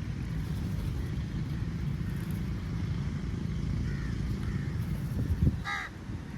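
Steady low rumble of road traffic with faint bird calls over it; near the end a low thump, then a single loud, harsh crow caw.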